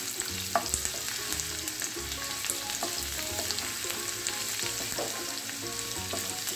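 Chopped garlic and ginger sizzling and crackling in hot oil in a nonstick frying pan, stirred with a spatula.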